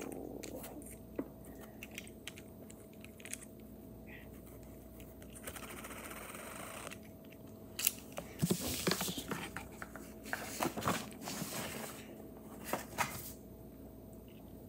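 Small laser-cut plywood and plastic kit parts being handled and fitted together: scattered light clicks and knocks, a stretch of rubbing about six seconds in, then a busier run of clicks and rattles from about eight to thirteen seconds.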